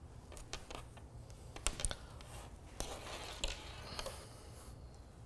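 Knitted fabric on metal-tipped circular needles being laid out and smoothed flat on a tabletop: soft rubbing and brushing of the fabric, with a few light clicks from the needles near the middle.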